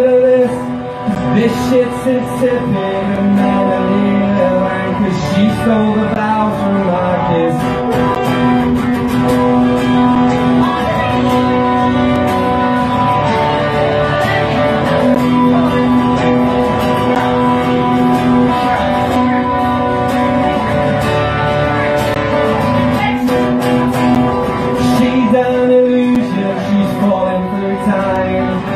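Acoustic guitar strummed live, with a man's singing voice holding long notes over it.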